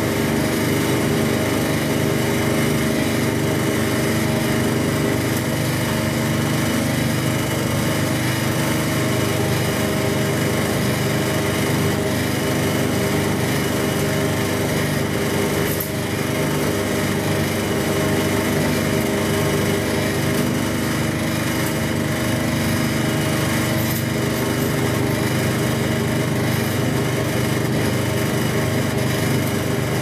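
IPSO 25 lb commercial front-loading washing machine running a hot wash: a steady motor hum, with water and suds churning in the turning drum.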